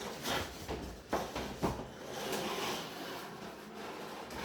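Packaging being handled as an RC car box is unpacked: rustling with a few sharp knocks, two of them about a second and a second and a half in.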